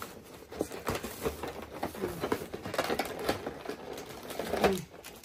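Irregular rustling and crinkling with small clicks as a packaged snack biscuit is unwrapped and handled. A short vocal sound comes near the end and is the loudest moment.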